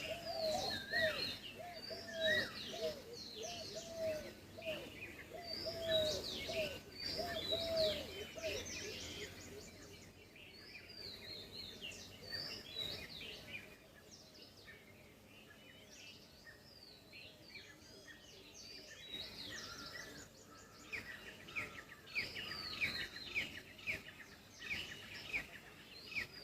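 A chorus of wild birds: many short, high chirps and whistles overlapping, with a lower call repeated about twice a second for the first eight seconds or so. The birdsong thins out and grows quieter in the middle, then picks up again near the end.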